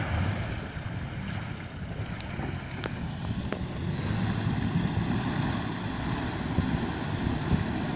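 Wind buffeting the microphone over open water, as a steady rumbling noise with a wash of waves behind it. A few faint clicks come between two and three and a half seconds in.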